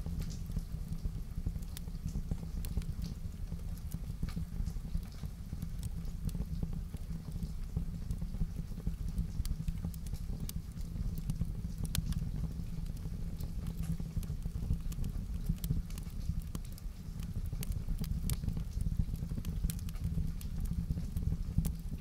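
Wood fire burning in a fireplace: irregular sharp crackles and pops over a steady low rumble.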